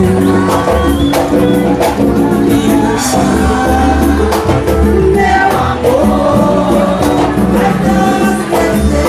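Live band music: a woman singing into a microphone over acoustic guitar, electric bass and percussion, with a steady beat.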